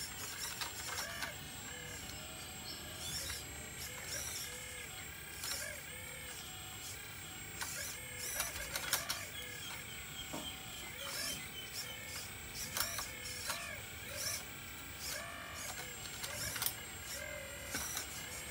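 Remote-control model excavator's small electric drive whining in short bursts that rise and fall in pitch as the boom, arm and bucket move, with scattered clicks and scrapes from the bucket working the soil.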